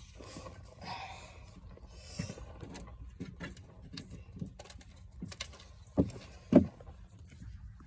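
Fishing gear being handled and loaded into a utility vehicle: scattered clicks and rattles, with two louder knocks about six seconds in.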